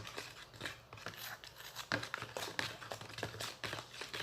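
Homemade slime being stirred in its tub: an irregular run of small scrapes and clicks from the thick, sticky mixture and the stirrer against the container.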